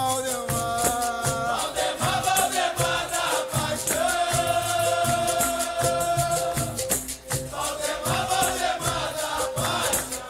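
Capoeira music: voices sing long held notes over a berimbau, a rattling shaker and a steady percussion beat.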